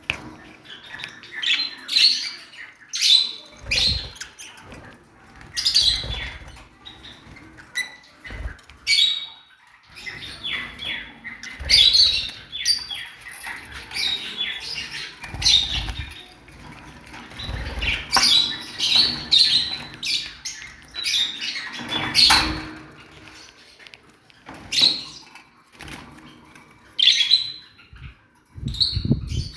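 Small cage birds chirping in short high calls again and again, with a few low thuds or flutters of wings in between.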